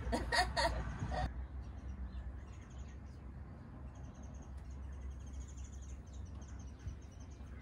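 Faint birds chirping outside over a low, steady hum, after a few words of talk about a second in.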